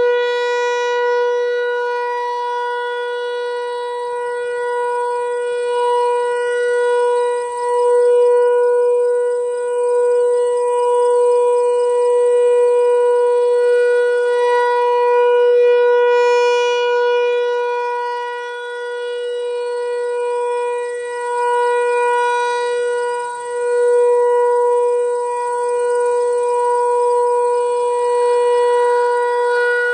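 American Signal T-128 rotating outdoor warning siren sounding its steady 'Alert' signal during a siren test. It holds one unwavering pitch that swells and fades every several seconds as the rotating horn sweeps around.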